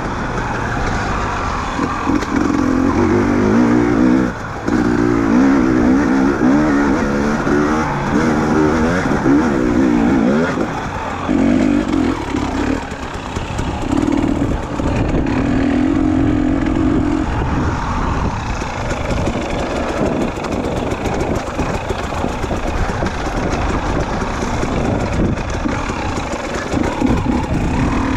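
KTM enduro motorcycle engine under way off-road, its revs rising and falling again and again with the throttle.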